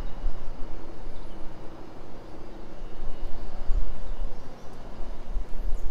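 Wind rumbling and buffeting on the microphone in uneven gusts, with a faint steady hum in the first couple of seconds.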